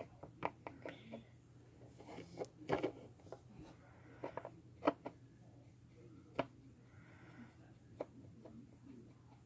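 Quiet, irregular clicks and taps from fingers handling a paint pen close to the phone's microphone, a little over a dozen in all, the loudest about two thirds of the way through.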